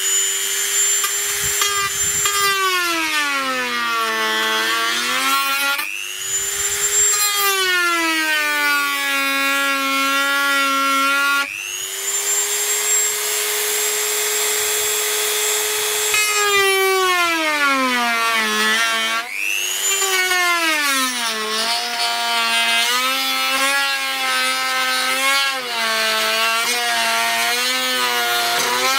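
Dremel rotary tool with a cutting disc running through a hard plastic boat hull, a high whine that sags in pitch each time the disc bites into the plastic and climbs back when it runs free, several times over. The disc is melting its way through the plastic more than cutting it.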